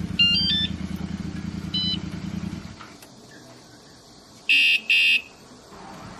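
A motorcycle engine idling, with a few short electronic chirps over it, then shutting off about three seconds in. Near the end come two loud, short electronic beeps from a compact motorcycle anti-theft alarm.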